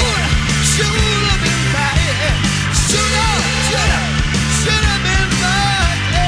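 Rock music soundtrack with a steady drum beat and pitched parts that bend up and down.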